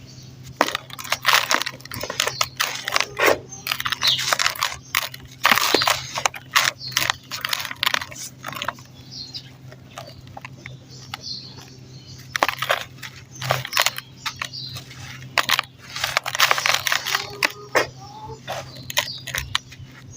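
Clumps of dirt crumbling with gritty, crunchy crackles. They come in irregular bursts with short pauses between them, over a faint steady low hum.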